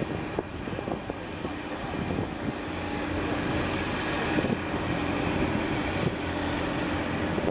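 Wind buffeting the microphone over the steady drone of a small workboat's engine as it runs across the harbour at speed, trailing a wake.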